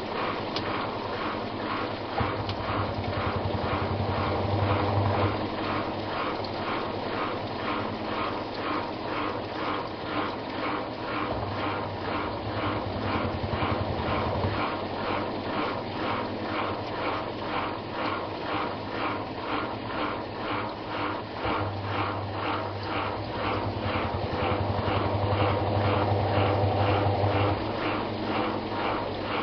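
Samsung WA89V top-loading washing machine agitating its load, churning in an even rhythm of about two to three strokes a second. The motor's low hum switches on for a few seconds at a time, three times.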